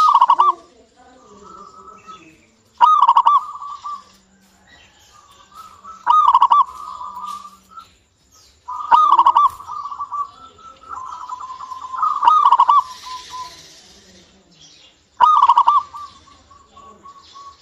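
Local Indonesian zebra dove (perkutut) singing: a loud rolling cooing phrase about every three seconds, six in all, with softer, quicker cooing between them.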